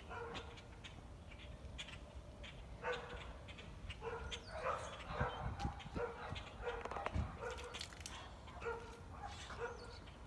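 A dog barking over and over, about a dozen short barks spaced irregularly.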